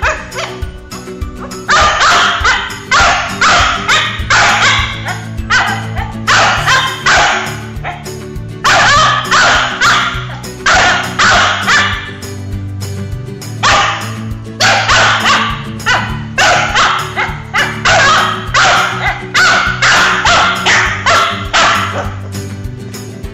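Shih Tzu barking in bouts of short, sharp barks, two or three a second, with brief pauses between the bouts.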